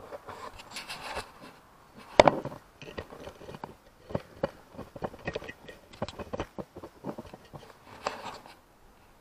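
Irregular clicks, knocks and scrapes of the rusty disc horn on a Zontes Tiger 125 motorcycle being handled off its bracket and its wire spade connectors pulled off by hand. The loudest is a sharp knock about two seconds in, and the handling stops shortly before the end.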